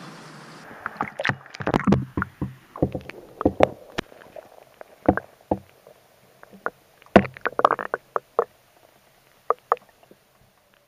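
Water knocking and splashing against a submerged action camera: irregular sharp clicks and knocks, thinning out toward the end.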